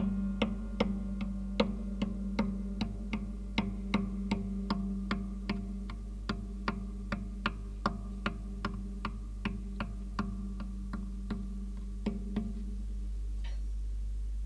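A mouse-walking sound effect: light, evenly spaced ticking taps, about two to three a second, over a steady low hum. The taps grow sparser partway through and stop about 12.5 seconds in, leaving the hum alone.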